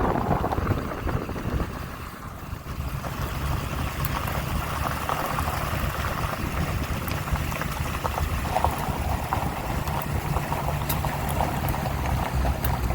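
A vehicle driving slowly on a gravel road: a steady low engine drone with the crackle and crunch of tyres rolling over gravel.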